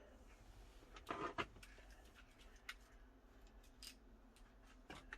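Near silence broken by a few faint, short clicks and taps, the loudest a quick pair about a second in.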